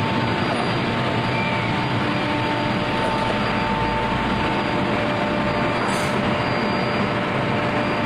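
Steady machinery running noise with a faint high whine held over it.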